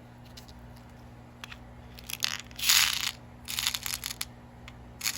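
Plastic packaging crinkling in several short bursts, with small clicks around them, as bead strands are handled.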